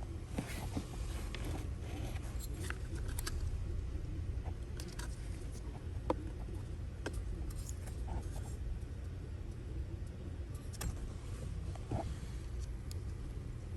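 Scattered light clicks and small metallic rattles at irregular moments over a steady low hum.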